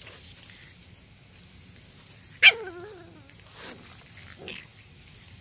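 Boston Terrier puppy giving one short, wavering yelp about two and a half seconds in, as the puppies play-fight; otherwise only a few faint small sounds.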